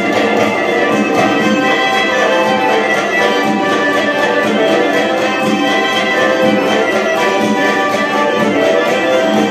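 Lively Circassian folk dance music with a quick, steady beat, accompanying a dagger dance.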